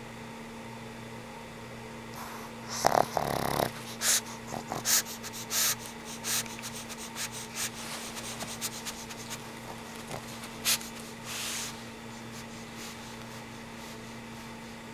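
Old pug snoring in its sleep: a louder rasping snore about three seconds in, then a run of short, sharp snuffles, roughly one every 0.7 s, that grow fainter.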